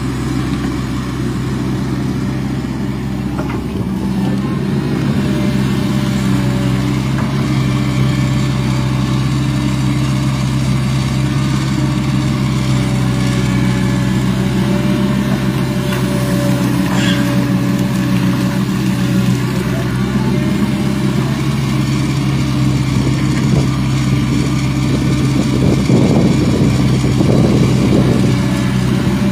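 Hitachi hydraulic excavator's diesel engine running steadily as its boom and bucket work in deep mud, with a thin steady whine above the engine note. The sound grows a little louder near the end.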